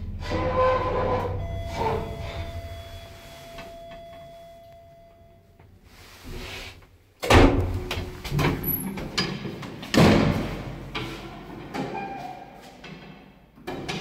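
Passenger lift doors at a landing: the car's sliding doors open with a steady whine for a few seconds, then loud metal clanks and thuds as the manual hinged landing door is pushed open and swings shut.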